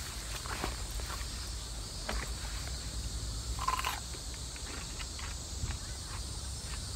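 Steady high buzzing of insects in a summer grass field, over a steady low rumble, with scattered light clicks and rustles as someone moves about and sits down in a camp chair.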